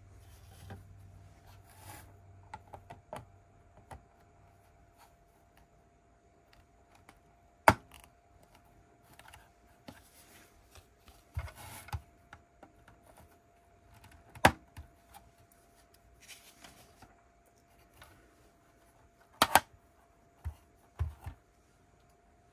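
Lego plastic bricks being handled and pressed together, with sharp snapping clicks a few seconds apart (the loudest a double click near the end) and softer taps and rustles of pieces between. A faint steady hum runs underneath.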